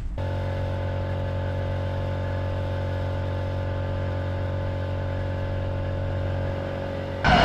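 Metal lathe running with a steady hum made of several fixed tones. Near the end a louder, rougher noise abruptly joins it.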